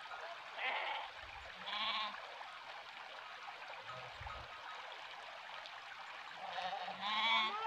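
Sheep bleating in a grazing flock: short bleats about one and two seconds in and a longer, louder bleat near the end, over the steady trickle of water in an irrigation channel.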